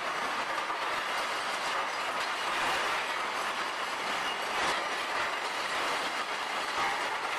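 Didion rotary sprue crusher running: a continuous din of iron sprues, gates and runners tumbling and clattering against each other and the steel drum as it turns, knocking the moulding sand off the metal and breaking up core lumps.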